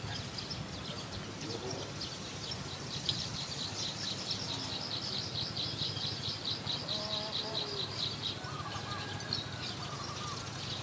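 Outdoor rural ambience: a steady low background noise with a rapid, high-pitched pulsing trill of about five pulses a second from about three to eight seconds in, and a few faint short chirps near the end.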